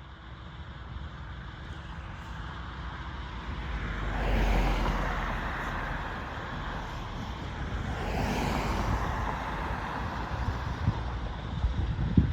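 Amtrak passenger train approaching and passing close by at speed: a rumble that builds to a loud rush of wheel and rail noise about four and a half seconds in, swells again around eight seconds, then goes on as wheels clattering over the rails with sharp clicks near the end.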